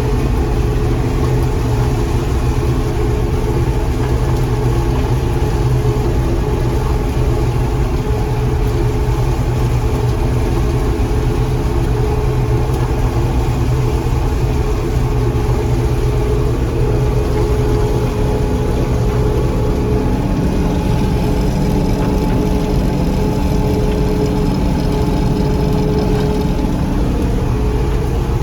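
John Deere 4400 combine running steadily while harvesting corn: a constant engine drone with steady machinery tones and no changes in pace.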